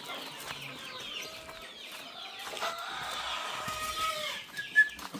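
A flock of Boschveld chickens clucking and calling over one another in many short, overlapping calls, with a sharp knock near the end.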